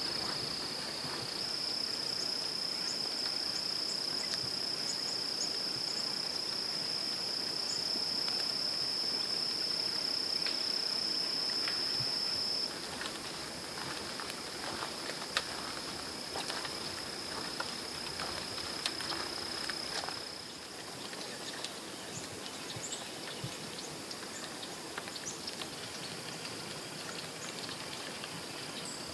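Insects trilling in one steady, high continuous buzz. It drops in level about 13 seconds in and fades to faint about 20 seconds in, over scattered small clicks, one sharper one about halfway.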